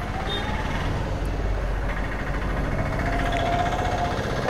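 Motorcycle engine running steadily under way, with road and traffic noise; a faint thin whine comes and goes twice.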